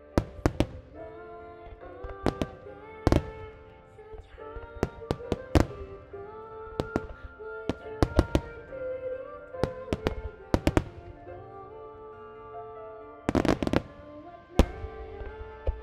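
Fireworks shells bursting in sharp reports over music with long held notes, typical of a pyromusical star mine set to music. About two dozen reports come irregularly, with a quick cluster near the end.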